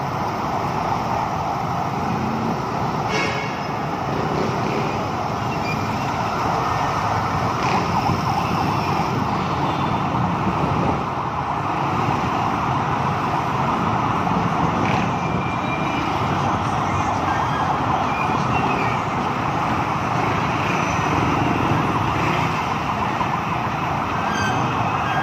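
An emergency vehicle's siren sounding continuously, pitched in a band that sweeps up and down, over the rumble of slow city traffic.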